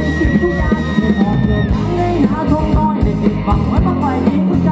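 Live band playing loudly through a PA system, with a steady drum and bass beat under a long held high note that breaks off about a second and a half in; a singer's voice comes over the music.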